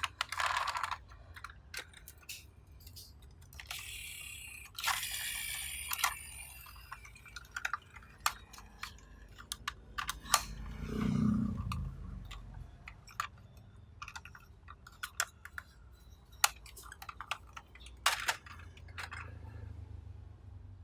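Plastic toy vehicles being handled: irregular light clicks and knocks, with a brief rustle about four seconds in and a short low hum around eleven seconds.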